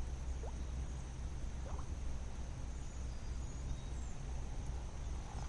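Outdoor background: a steady low rumble of wind on the microphone under a steady high insect hum, with two faint short rising chirps about half a second and a second and a half in.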